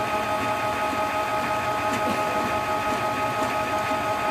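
Canon G-series ink-tank printer running its ink-charging cycle: the mechanism hums steadily with a few held tones as it draws ink through the tubes to the print head.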